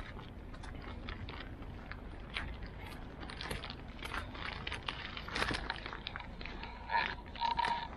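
Footsteps of someone walking on a cleared, slushy winter sidewalk: a run of short gritty clicks at walking pace, over a low steady rumble.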